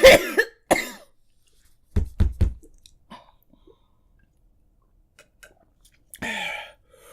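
A person coughing in fits, set off by a very spicy chip: a loud cough at the start, a quick run of three short coughs about two seconds in, and another near the end.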